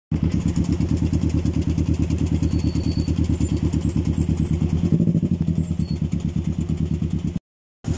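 Motorcycle engine running steadily at low revs, with an even, rapid pulsing beat. The sound cuts out completely for a moment near the end.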